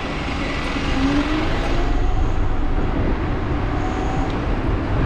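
Wind rushing over the chin-mounted camera microphone, mixed with tyre and road noise from a Dualtron Thunder electric scooter riding along on tarmac. The noise is steady and strongest in the deep end.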